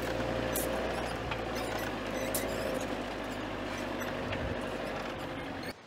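Iveco Daily 4x4 camper van driving: steady engine and road noise with a low hum, a steady mid-pitched whine and light scattered rattles. It cuts off abruptly near the end.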